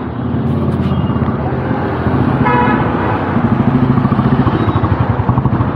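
Street traffic: motorcycle and car engines running close by, with one short vehicle horn toot about two and a half seconds in. An engine beats at a steady idle through the second half.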